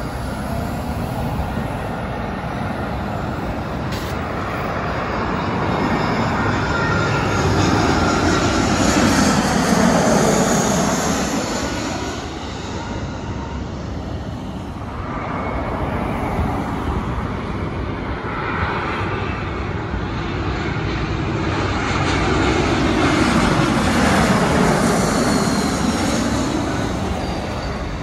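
Jet airliners on final approach passing low overhead, twice: each time the engine rush swells to its loudest about a third and again about five-sixths of the way through, with a sweeping whoosh, then fades.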